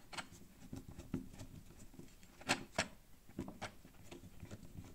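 Light scattered clicks and taps of a plastic power socket and its mounting screws being handled, with two sharper clicks about halfway through.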